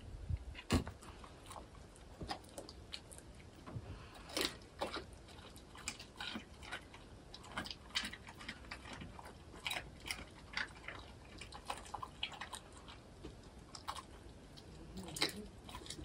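A dog chewing something, with irregular crunches and bites.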